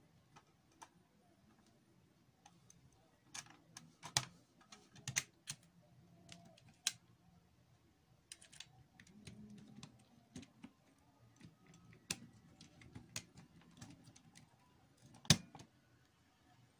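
Scattered light clicks and taps at irregular intervals from hands handling an opened portable CD player's plastic case and small loose screws on a tabletop, with one sharper click near the end.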